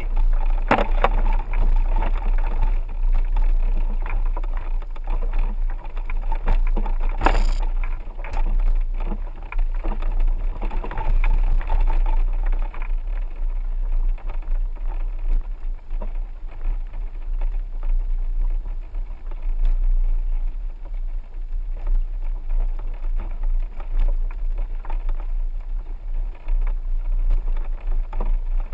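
A 4x4 vehicle driving slowly: a steady low rumble with frequent small knocks and rattles, and one louder clatter about seven seconds in.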